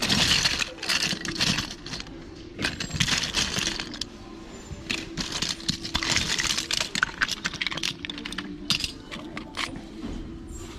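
Hands sifting through a pile of small plastic action figures, parts and accessories, the pieces clattering against each other in spells of a second or two with short lulls between.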